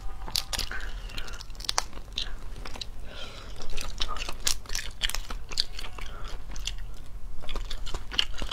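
Close-miked eating of spicy braised crayfish: shells crackling and crunching as they are pulled apart by hand, with chewing. The crackles come in quick, irregular bursts.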